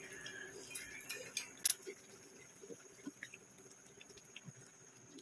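A few sharp clicks and light taps of cooking utensils against the pan and glass bowl, the loudest about one and a half seconds in, followed by scattered faint ticks over a low steady hum.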